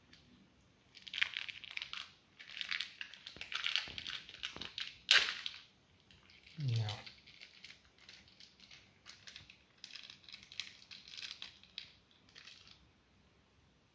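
Plastic wrapping being handled and crinkled in bursts, with a sharp click about five seconds in and a short falling sound soon after.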